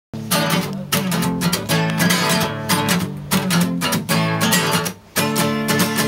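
Acoustic guitar strummed in a steady chord pattern, the song's intro before the singing comes in, with a short break in the strumming about five seconds in.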